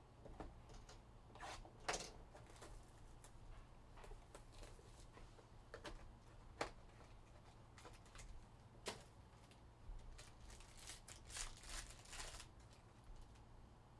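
Faint clicks and rustles of trading cards and a cardboard card box being handled, then a cluster of crinkling near the end as a foil card pack is torn open.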